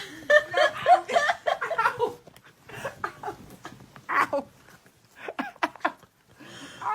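A person laughing in several bursts, with short pauses between them.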